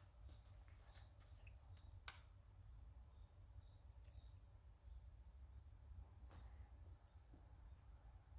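Near silence: room tone with a faint, steady high-pitched whine and a couple of faint clicks.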